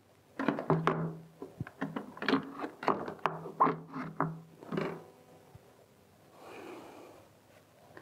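Hard plastic spin basket of a Rovin Ecospin portable washing machine knocking and clattering against its plastic tub as it is lowered in and seated, a run of quick clunks for the first five seconds or so, then quieter.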